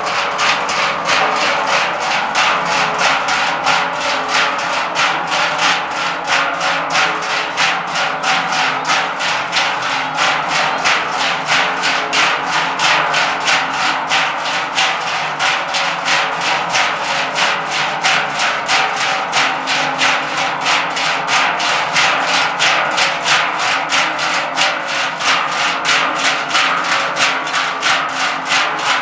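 A marching group of Swiss Trychlen, large hammered sheet-metal cowbells, swung in unison so that they clang together in a steady, even rhythm, with a dense ringing drone of many bells.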